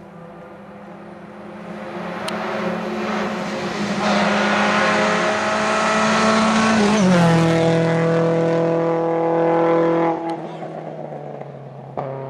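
Rally car engine at speed, approaching and growing louder for several seconds. Its note drops in pitch as it passes close by, then it carries on away and fades. A sharp click comes near the end.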